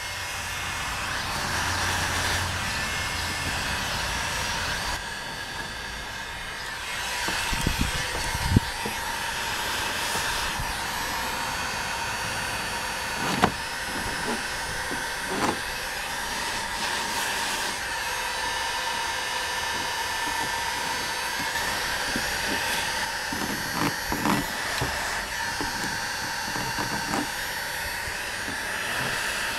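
Electric heat gun running steadily: a steady rush of blown air with a faint whine from its fan. It is softening the polyethylene around a mesh patch being embedded in a kayak hull repair. A few light knocks come in the middle.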